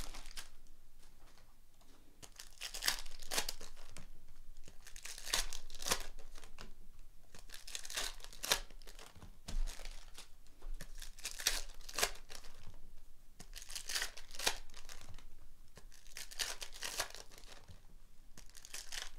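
Foil trading-card packs of 2019-20 Donruss Optic basketball being torn open and their wrappers crinkled, in a run of short rips and rustles every second or two.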